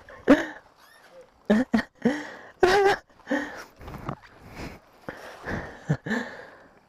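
People's voices in short wordless bursts: exclamations, grunts and gasps, a dozen or so, loudest about two and a half seconds in.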